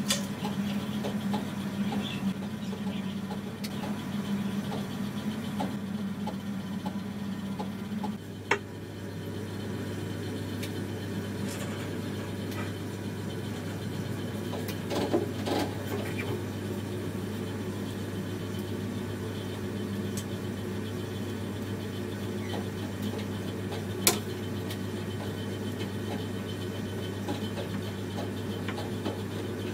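Small Rowi bench belt sander running with a steady hum. About eight seconds in, the hum shifts to a lower, steadier drone that carries on, with a few sharp clicks.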